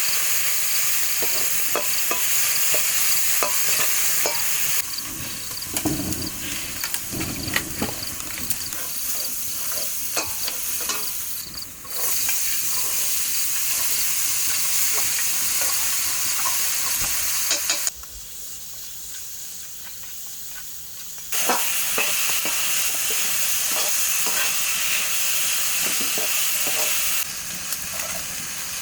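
Food sizzling and frying in a hot pan while it is stirred, with frequent small scraping clicks of the spoon against the pan. The sizzle is louder in some stretches and quieter in others, changing abruptly several times.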